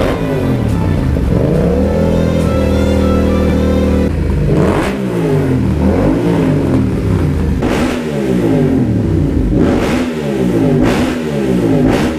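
Yamaha MT-07's parallel-twin engine revved hard in neutral through an Arrow slip-on exhaust. The revs climb and hold high for about two seconds, then come as a string of quick throttle blips, with a few sharp cracks from the exhaust as the revs drop.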